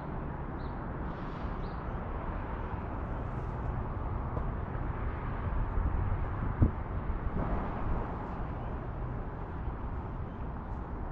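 Outdoor background noise: a steady low rumble, with one sharp knock about two-thirds of the way through.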